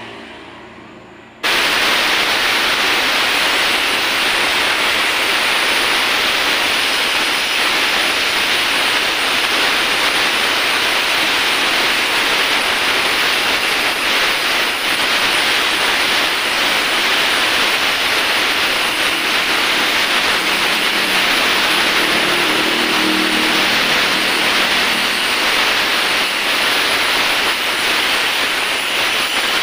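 Oxy-acetylene torch flame hissing steadily while welding aluminium on an engine crankcase. The hiss starts suddenly about a second and a half in, after a quieter moment.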